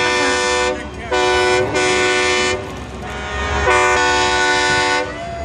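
Several long, loud horn blasts, each a steady held chord of about a second with short breaks between them.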